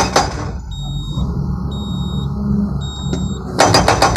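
Excavator-mounted hydraulic breaker hammering in a rapid run of blows, about seven a second. It stops about half a second in, leaving the excavator's engine running and a repeated high electronic beep, then starts hammering again near the end. The operator still judges the blows weak and slow after the nitrogen recharge.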